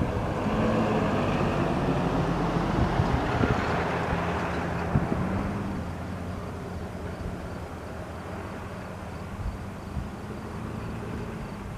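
Cessna 172N Skyhawk's four-cylinder Lycoming engine and propeller running at low power as the plane taxis. The steady drone is louder for the first few seconds and fades about five seconds in.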